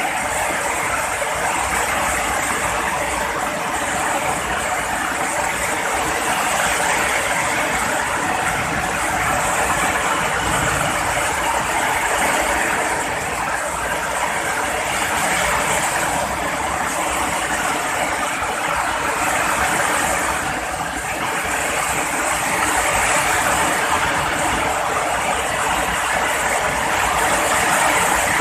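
Heavy rain falling steadily: a dense, even hiss that swells and eases slowly.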